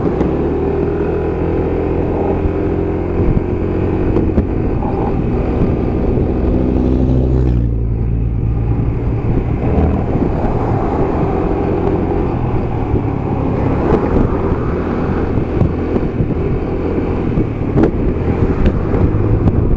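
Vehicle engine and road noise while driving. The engine note rises over the first few seconds, breaks off briefly about seven and a half seconds in, then carries on steadily.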